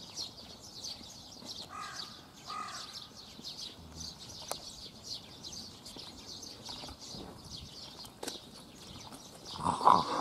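Small birds chirping continuously in quick, high twitters, with two lower calls about two seconds in. A brief louder sound comes near the end.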